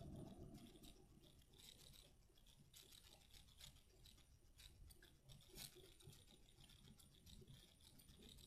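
Faint crackling and clicking of homemade slime being squeezed and worked by hand.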